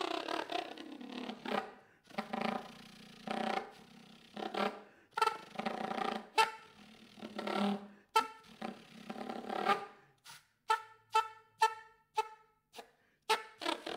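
Soprano saxophone played solo in free improvisation: a string of separate short notes, many with much air noise around the tone. In the last few seconds they turn into clipped staccato notes, about two or three a second, with silence between them.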